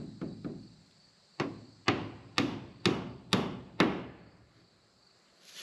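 Hammer nailing a board of poplar lap siding onto a wooden frame: three light setting taps, then six hard blows about half a second apart, each ringing briefly in the board.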